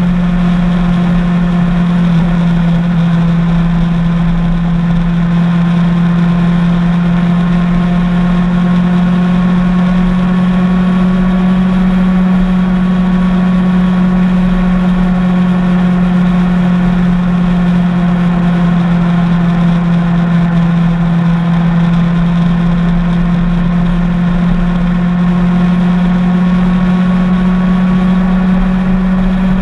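Motorcycle engine running at a steady cruising speed, a loud, even drone that holds one pitch, over road noise.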